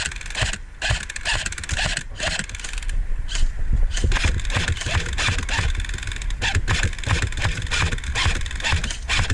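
A&K M249 airsoft electric light machine gun firing rapid full-auto bursts, a fast clatter of shots that grows denser about four seconds in.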